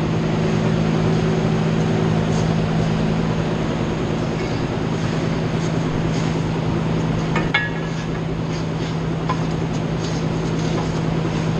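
Steady machinery running: a continuous low hum over a broad rushing noise, with a brief metallic clink about seven and a half seconds in.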